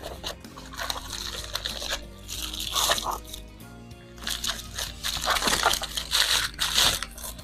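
Plastic packaging being handled, crinkling and crackling in several bursts of about a second each, over background music.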